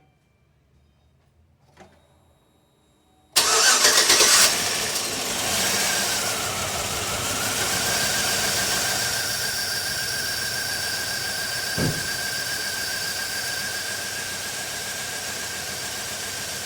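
Chevy Tahoe V8 starting after a few seconds of quiet: a sudden loud burst as it fires, then settling into a steady idle with a high steady whine. It starts and runs only because a temporary ground wire bridges an open engine-block ground, the fault behind its crank-no-start.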